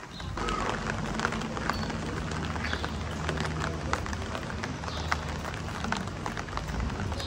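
Ambience of a wet cobblestone street: footsteps and scattered light taps and drips, over a low steady hum.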